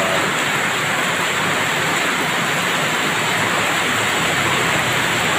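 Heavy tropical rain pouring down steadily, a dense even hiss of rain falling on the road and surrounding surfaces.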